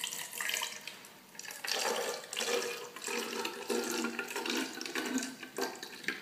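Water poured from a plastic measuring jug into the narrow neck of a plastic water bottle, splashing inside as the bottle fills; the pour starts suddenly and runs on unevenly.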